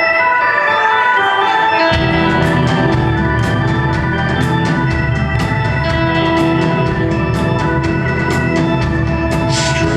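Live rock band playing, led by an electric organ melody. Bass and drums come in about two seconds in, with a steady beat of cymbal hits about once a second.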